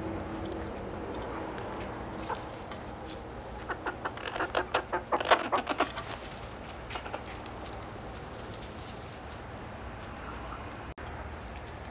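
Buff Orpington hens clucking, with a quick run of short clucks between about four and six seconds in.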